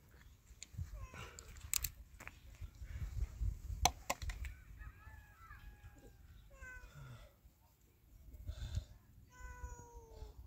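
An animal calling: several short pitched cries about six to seven seconds in, then one longer call, falling slightly in pitch, near the end. They sound over low rumble and a few sharp knocks, the loudest about four seconds in.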